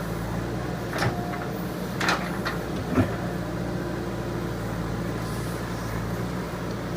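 JCB 3DX Super backhoe loader's diesel engine running steadily at work, with three short knocks about one, two and three seconds in, the last the loudest.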